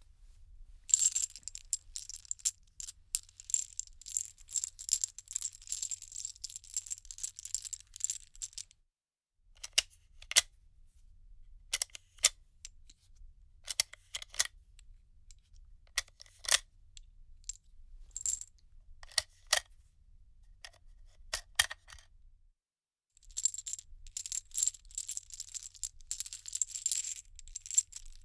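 Bullets being handled: loose metal cartridges clinking and jingling against one another. A dense rattle runs for the first eight seconds or so, separate clinks come scattered through the middle, and another stretch of dense rattling comes near the end.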